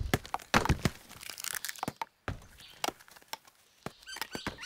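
Irregular sharp clicks and knocks, several a second, of stones and hard palm nuts being handled and struck against a stone anvil by bearded capuchin monkeys, with a brief scraping rustle after about a second.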